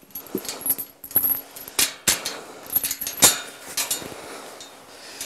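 Metal clinking and knocking from a pen gate and its latch being worked one-handed: a string of sharp strikes, the loudest in the middle, with a bright metallic ring.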